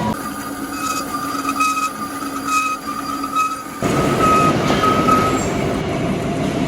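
Metal lathe running while machining a steel coupling, with a high whine that comes and goes. About four seconds in, the sound changes abruptly to a louder, rougher grinding noise.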